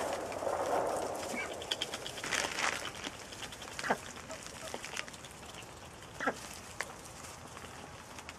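Domestic ducks dabbling and moving about in straw bedding: scattered clicks and rustles from bills and feet in the straw, with a few short quacks.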